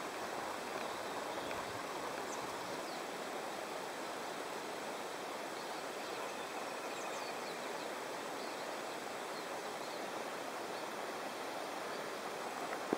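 Steady outdoor ambience: an even rush of noise with a few faint high chirps.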